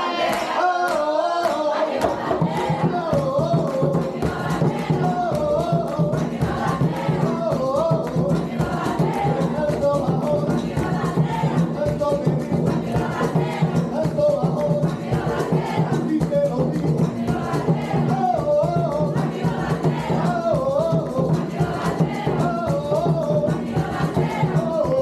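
Live Puerto Rican bomba: a row of barrel drums (barriles) played by hand in a fast, dense rhythm under singing voices. The drums come in about two seconds in, after a stretch of singing alone.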